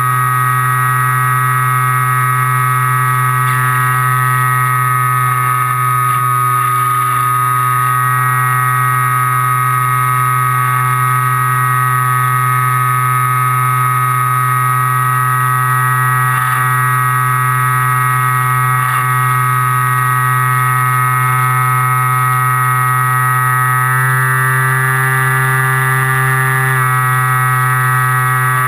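An FPV plane's motor and propeller drone steadily in flight, heard from on board, shifting pitch slightly twice near the end as the throttle changes.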